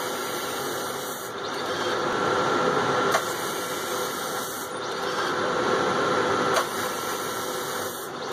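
Speedline Vectra Elite wave solder machine running: a steady mechanical whir of its conveyor, solder pump and fans with a faint steady hum, and a brief click about every three and a half seconds.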